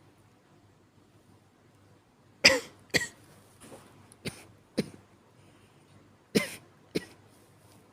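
A person giving weak coughs. After about two seconds of quiet comes a run of short coughs, then a pair of coughs near the end.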